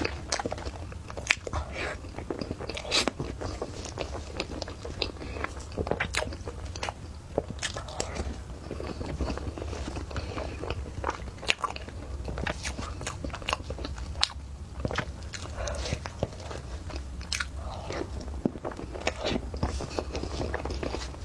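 Close-miked eating: chewing and biting with many sharp wet mouth clicks and smacks at an irregular pace, over a steady low hum.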